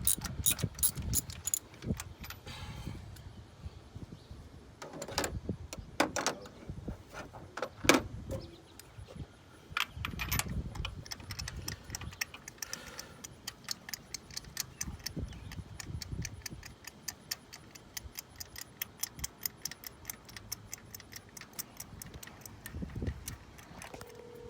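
Ratchet wrench clicking while turning a spark plug, with irregular metallic clinks and clicks in the first half, then a long run of quick, even clicks in the second half.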